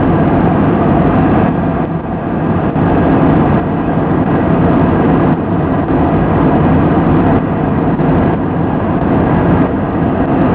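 Steady cabin noise of an Airbus A320 in flight, heard inside the cabin by the wing: an even, loud rush of engine and airflow noise with no change through the stretch.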